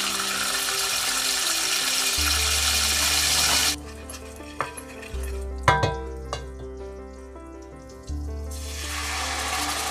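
Anchovies sizzling in hot olive oil in a stainless-steel pan, a loud hiss for the first few seconds that drops off abruptly. A few sharp knocks of a wooden spoon against the pan follow in the middle, and the sizzling picks up again near the end. Background music plays throughout.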